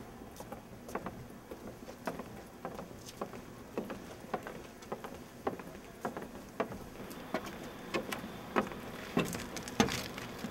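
Footsteps of two people walking on a concrete sidewalk: a steady run of shoe clicks, about two a second, a little louder near the end.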